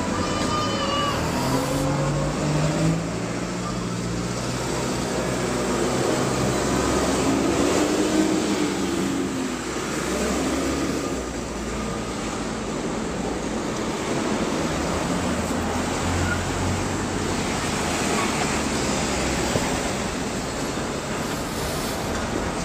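Busy city street traffic: cars and a double-decker bus running past, a steady wash of engine and road noise.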